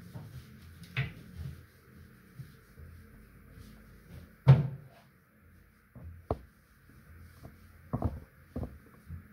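Scattered knocks and taps from items being handled around a bathroom washbasin, the loudest a solid knock about four and a half seconds in.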